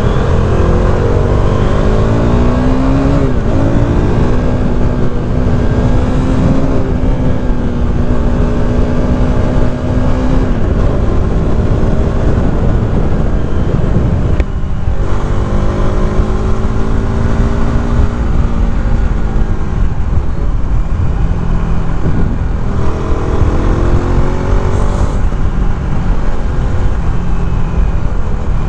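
KTM RC 390's single-cylinder engine under way, its revs climbing several times through the gears and holding steady in between, with a brief drop in engine note about halfway through. Heavy wind rush on the microphone runs under it.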